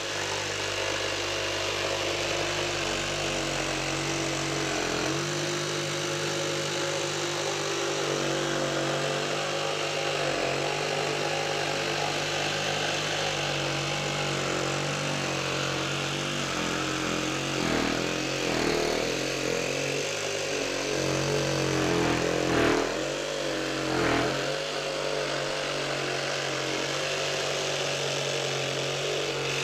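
Milwaukee M12 FUEL FJS cordless brushless jigsaw cutting shapes through a 38 mm chipboard worktop with the pendulum action on setting 2. The motor and blade run steadily, and the pitch dips briefly several times as the blade loads up, most of them in the second half.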